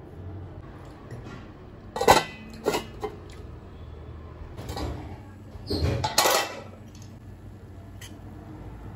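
Stainless-steel pan lid clanking against a cooking pan: a cluster of three sharp metallic clanks about two seconds in as the lid goes on, then another cluster of loud clanks about six seconds in as it comes off. The biryani is being sealed for dum cooking.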